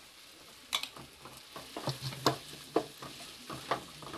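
A wooden spatula stirring and knocking against a kadai, with several sharp taps, as mashed boiled potato is worked into a frying onion-tomato masala. A faint sizzle runs underneath.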